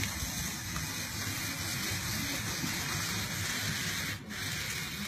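Apple peeling and cutting machine running, its blade scraping the skin off the apple: a steady noise, with a short break about four seconds in.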